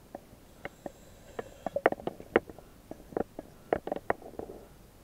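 Heard underwater: irregular sharp clicks and short gurgles of gas bubbling from the diving gear of a diver in an IDA-59M oxygen rebreather.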